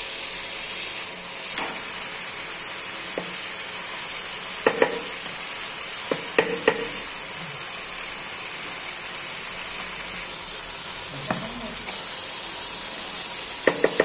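Chicken pieces and giblets sizzling steadily in hot oil in a non-stick wok. A few sharp clicks come through now and then, some in quick pairs.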